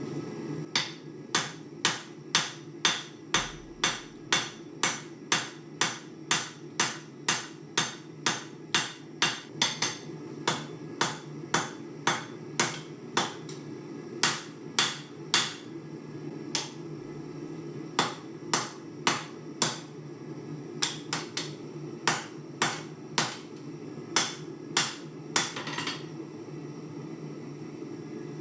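Hand hammer striking a decommissioned farrier's rasp on the anvil as it is forged into a knife, about two blows a second with a short break about two-thirds of the way through, stopping a few seconds before the end. A steady low rushing noise runs underneath.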